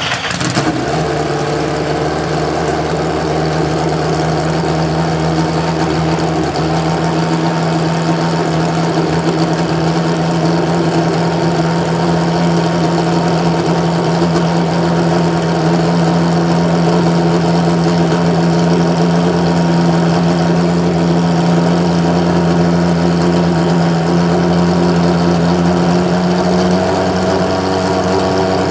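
Benetton B193A Formula One car's Ford Cosworth V8 idling steadily and loudly, its pitch rising slightly near the end.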